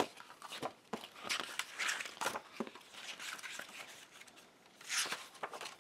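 Paper pages of a printed puzzle booklet being handled and turned: rustling and sliding with small taps and clicks, with a louder swish of paper about five seconds in.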